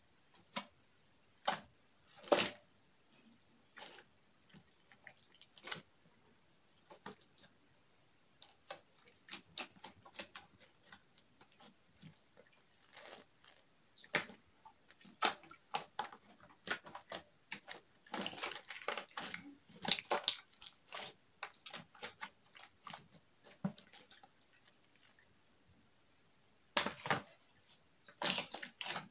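Hands squeezing, pressing and kneading clear green glitter slime. The slime makes irregular wet squishes and small sticky pops and clicks: sparse at first, then thick and fast, with a short pause near the end before a last flurry.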